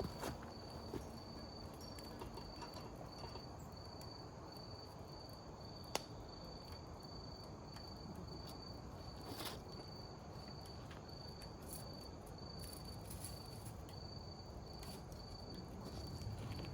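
Cricket chirping steadily at about two high chirps a second. A few sharp crackles come from the wood fire in the fire pit, one about six seconds in and another near ten seconds.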